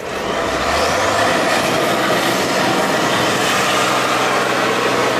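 Tatra 813 eight-wheel trial truck's diesel engine revving hard under load, swelling over the first second and then holding steady, with a faint whine rising in pitch at the start.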